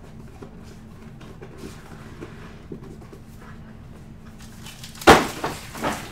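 Empty cardboard trading-card box being handled and cleared away: light rustling, then a loud cardboard thud and scrape about five seconds in, followed by two smaller knocks.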